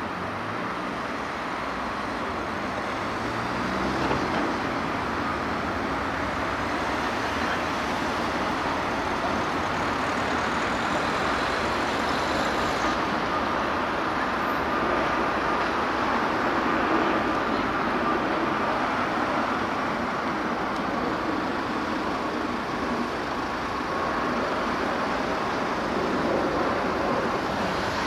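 Jet noise from an easyJet Airbus airliner climbing out overhead: a steady, even rush of engine sound, with a faint high whine about halfway through.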